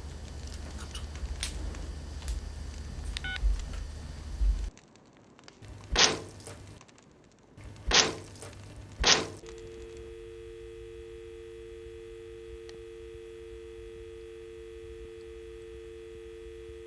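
Clicks and rustle over a low hum, then three loud, sharp knocks a second or two apart, followed by a steady two-note telephone dial tone that sets in just after the last knock.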